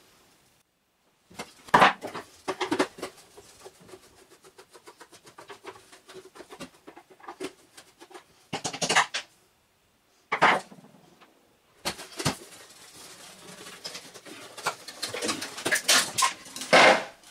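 Hard plastic vacuum cleaner motor housing being prised and pulled apart by hand: plastic clicks, creaks and knocks, with a run of quick small clicks a few seconds in and a busier cluster of knocks and scrapes near the end as the motor is worked loose.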